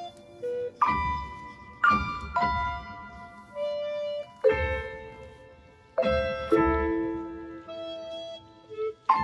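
Background instrumental music: a slow keyboard melody of struck notes that ring and fade.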